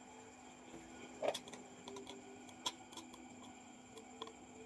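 A few small, sharp clicks and taps of plastic keyboard parts being handled during a button repair, the firmest about a second in, over a faint steady hum.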